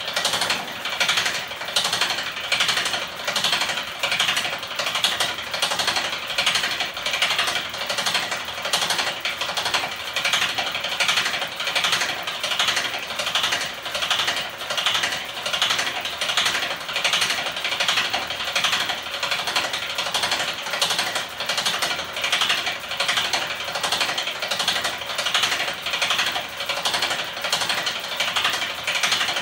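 Homemade battery- and electric-motor-driven magnet engine mechanism spinning in an aluminium frame, clattering in a steady rhythm of about two knocks a second.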